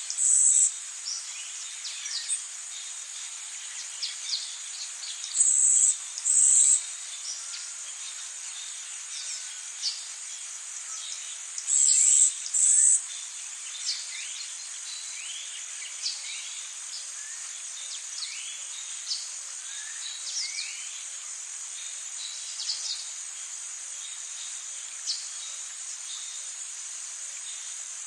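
Tropical rainforest ambience: a steady high-pitched insect drone, with short louder high bursts coming in pairs three times, about six seconds apart, in the first half, and scattered short bird chirps and rising whistles throughout.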